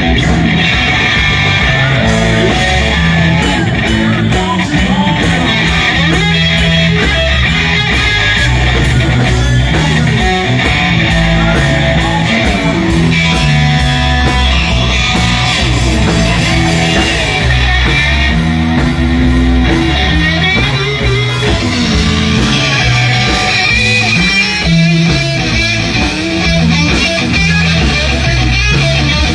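Loud live band music, led by electric guitar over a bass line that keeps moving between notes.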